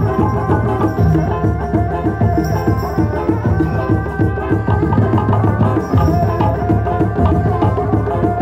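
Sundanese reak music: fast, dense hand-drumming with a sustained melody above it, playing without a break.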